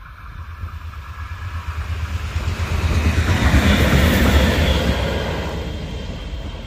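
Metronom diesel locomotive passing: a low engine rumble and a rush of running noise swell to a peak about four seconds in, then fade as it moves away.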